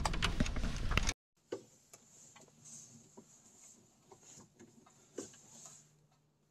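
A Sharpie permanent marker writing on a paper label stuck to a metal breaker box, as faint short scratchy strokes. It follows about a second of louder clicking and handling noise that cuts off suddenly.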